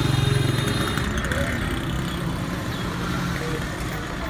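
Busy market street traffic: motor vehicle engines running close by, with people talking in the background. A low engine hum is loudest in the first second.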